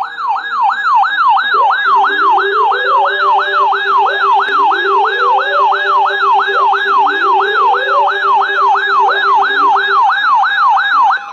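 Electronic yelp-style siren sweeping rapidly up and down, about three times a second, sounding as the attention signal of an emergency alert for a severe thunderstorm warning. A lower steady tone with slower rising glides runs under it for most of its length, and the siren stops near the end.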